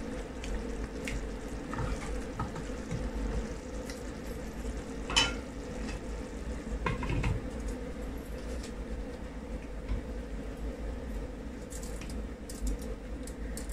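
Keema (minced meat in tomato sauce) sizzling and simmering in a non-stick frying pan as it is stirred with a wooden spatula. A few sharp knocks of utensils on the pan, the loudest about five seconds in, and light clicks near the end.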